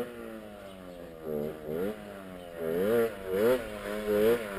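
Garelli Cross Brianza 50 cc two-stroke moped approaching. Its engine pitch rises and falls several times as the throttle opens and closes, and it grows steadily louder.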